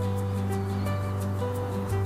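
Background music: sustained chords over a bass line that changes note about once a second.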